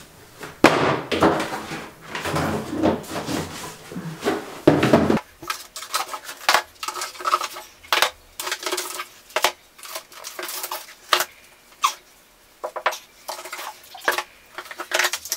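Cardboard shoeboxes being lifted, moved and stacked: a run of knocks, taps and scrapes. It is busier for the first five seconds or so, then turns into lighter, scattered clicks.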